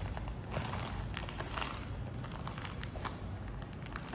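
Tissue paper wrapping rustling and crinkling under hands, with light scattered crackles and soft handling noises from the cardboard box.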